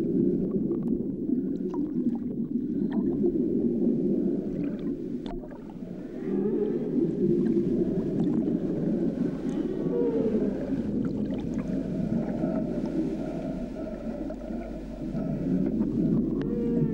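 Humpback whale calls heard underwater: a dense, low moaning with a few slow gliding tones.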